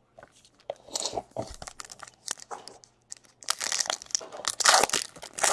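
Foil wrapper of a Bowman Chrome baseball card pack being torn open and crinkled by hand. It crackles on and off, loudest over the last two seconds.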